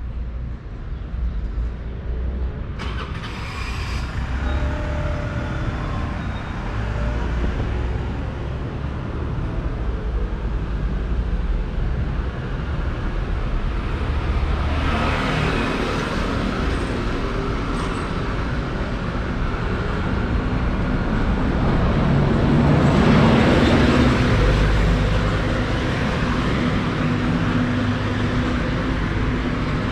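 Road traffic: cars and buses driving past with a steady engine rumble. Two vehicles pass close by, about halfway through and again a little later, the second one the loudest.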